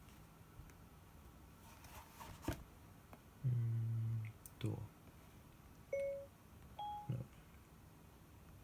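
A man's low wordless hums, one held for nearly a second, with a few shorter ones after it. Before them come a few light clicks and a knock as a tablet in its cover is set down on a desk.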